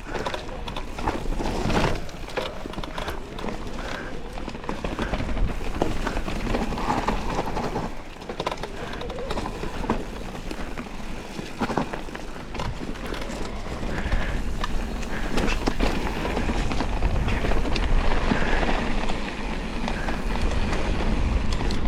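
Electric enduro mountain bike on a dirt forest trail: tyre noise and a continual rattle of small knocks from the bike, with a heavy low rumble of wind on the microphone.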